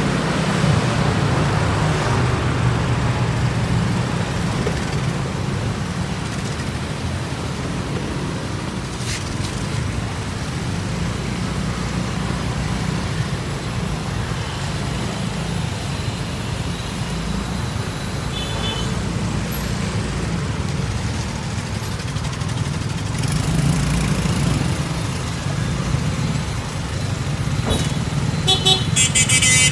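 Street traffic: motorcycle and car engines running close by in a steady rumble. A vehicle horn honks a few short times near the end.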